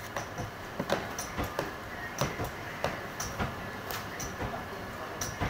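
Paper plate making machine running, with a steady mechanical background and irregular clicks and clacks, roughly three a second.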